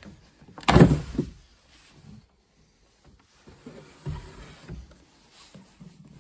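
Wooden drawer of an old chest of drawers pulled open by its knob: a short, loud scrape of wood sliding on wood about a second in. Softer knocks and handling sounds follow.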